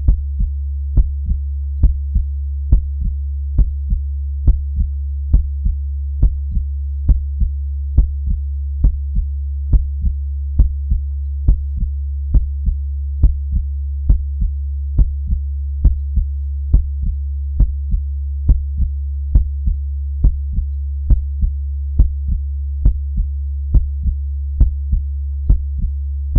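Slow, even heartbeat: paired lub-dub thumps, a strong beat followed closely by a softer one, about seventy a minute, over a steady low hum.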